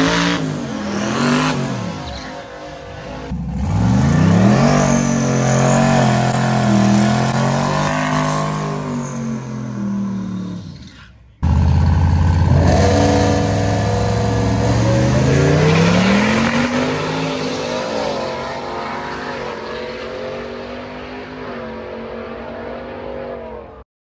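Pickup truck engines at a drag strip: one revs up and down at the starting line, then after a cut a Chevrolet Silverado holds a steady rev before launching, its engine pitch climbing in steps through the gears and slowly fading as it pulls away.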